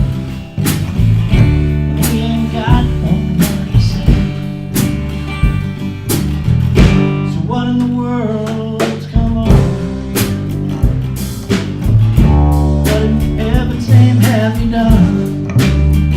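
A band playing an instrumental passage of a country-blues song: guitar over bass, with a steady beat of sharp hits and some bending notes in the lead part.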